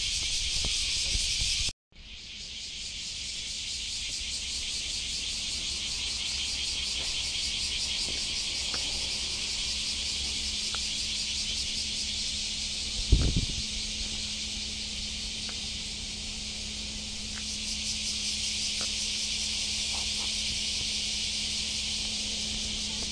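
Steady, high-pitched insect chorus with a fine pulsing texture. It cuts out briefly near two seconds in and then fades back up. A single low thump sounds about thirteen seconds in.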